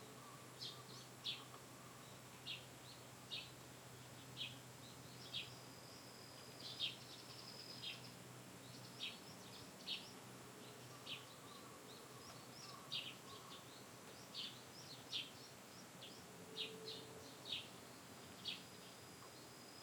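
A small bird chirping over and over, short high chirps about once a second, faint above a steady outdoor background. A low hum runs underneath and stops about halfway through.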